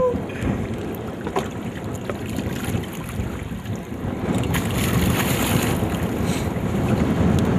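Wind buffeting the microphone over choppy river water, with short splashes from a hooked golden dorado thrashing at the surface, mostly in the second half.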